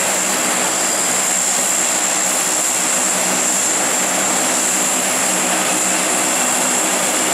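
Lockheed C-130 Hercules' four Allison T56 turboprop engines running on the ground: a loud, even propeller drone with a steady high turbine whine over it.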